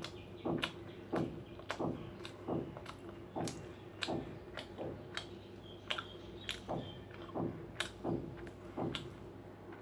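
Close-up chewing with wet mouth clicks and smacks, about two a second in a steady rhythm.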